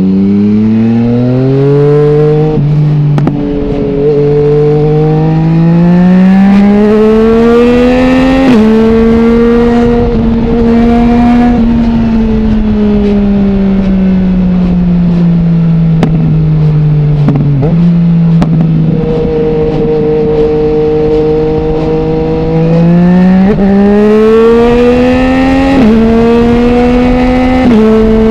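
Yamaha MT-09's inline-three engine through an Akrapovic full exhaust with no dB killer, pulling up through the gears. The pitch climbs and then drops sharply at each upshift. In the middle it falls away in a long slowing stretch, then pulls up through two more quick upshifts near the end.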